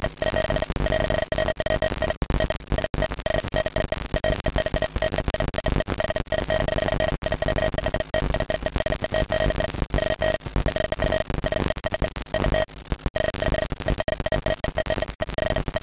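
Sound generated by a ZX Spectrum 256-byte intro: a harsh, crackly electronic buzz with a steady tone running through it, chopped by frequent brief dropouts.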